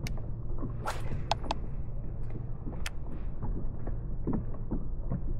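A few sharp clicks and taps of fishing gear being handled on a kayak, over a steady low rumble.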